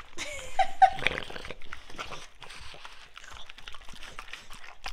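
Dogs eating a soft frosted cake: wet chewing, licking and lip-smacking clicks throughout, with a short whine about half a second in.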